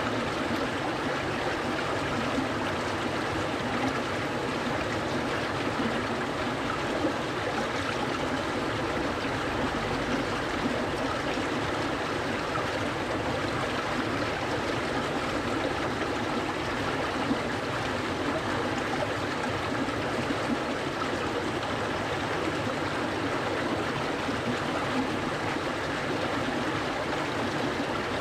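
A clear stream flowing and babbling steadily over its bed, with small gurgles and trickles throughout.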